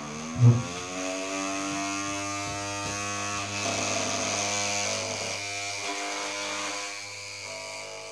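Small electric toy motor spinning a plastic fan blade: a steady whirring hum that rises in pitch over the first second as it spins up, with one loud knock about half a second in.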